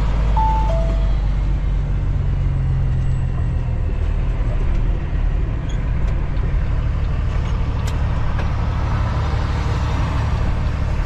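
Cummins ISX diesel of a 2008 Kenworth W900L running under way, heard from inside the cab as a steady low rumble. Within the first second a GPS navigator gives a two-note chime like a doorbell, the second note lower, which signals a turn coming up ahead.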